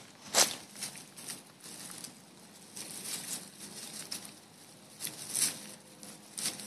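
Baby raccoons lapping water from a plastic frisbee and rustling in dry twigs and leaves: short, scattered crackles and small splashes.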